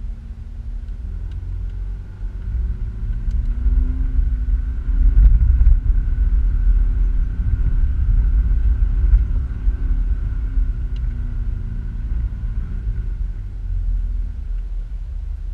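A lifted 2013 Subaru Outback's boxer engine and drivetrain working through loose dune sand, heard from inside the cabin as a heavy low rumble. The engine note rises and gets louder about four seconds in, then settles.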